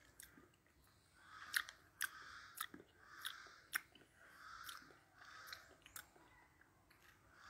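Faint wet mouth sounds of a hard, dried-out gummy bear being sucked and rolled around the mouth: soft pulses about every half second, with sharp little clicks of the tongue and lips between them.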